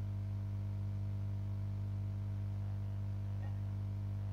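Steady low electrical mains hum with faint even overtones, unchanging throughout.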